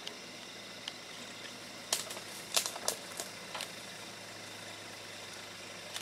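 Low, steady hum of an idling vehicle engine, with a handful of sharp clicks over about a second and a half, starting about two seconds in.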